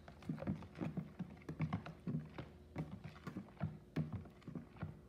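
Plastic spatula stirring sugar into juice in a bowl: repeated sloshing and light knocks against the bowl, about three strokes a second.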